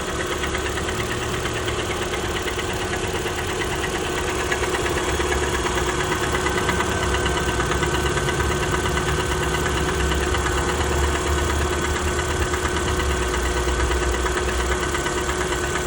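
Lada Vesta Sport's 1.8-litre four-cylinder engine idling after a cold start, with a rapid, rhythmic knock that has begun on cold starts; the owner thinks it is not a good sign.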